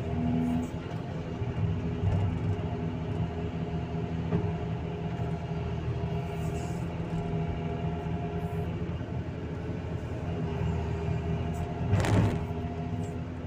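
Excavator's diesel engine running steadily under load while the bucket works. Near the end there is a short loud crunch and scrape as the bucket digs into the earth.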